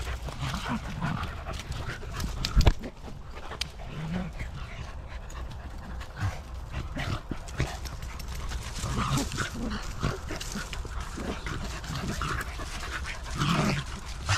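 A pack of small dogs moving about close by, with short dog sounds now and then among footsteps and scattered small knocks; a sharp knock about two and a half seconds in is the loudest sound.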